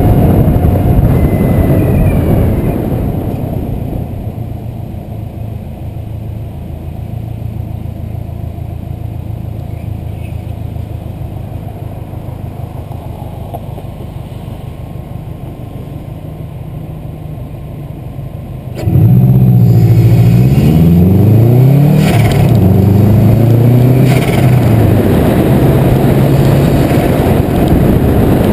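Turbocharged Subaru WRX flat-four engine heard from the car, cruising quietly for a long stretch, then pulling hard from about two-thirds of the way through, its revs rising and falling through several gear changes, with short sharp sounds at two of the shifts.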